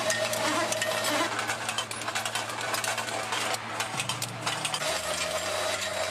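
Industrial machinery running: a steady hum under dense, rapid rattling and clicking. The hum's pitch shifts about four seconds in and again about a second later.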